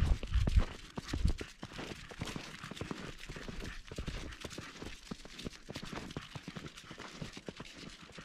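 Footsteps crunching in fresh snow at a walking pace, with a few heavier thumps in the first second or so.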